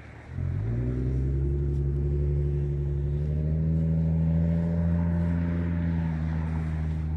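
A large engine starts droning suddenly about half a second in, a deep steady note whose overtones rise slowly over the next few seconds, then holds loud.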